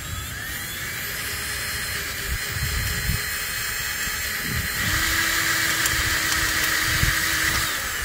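Cordless drill running steadily as its bit cuts through the set rivet that holds the exhaust onto the motorcycle's mid pipe, a continuous whining grind. It gets louder about five seconds in, with a steady lower hum joining the whine.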